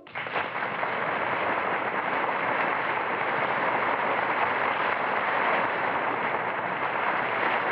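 A steady rushing noise with no pitch, cutting in abruptly and holding at an even level.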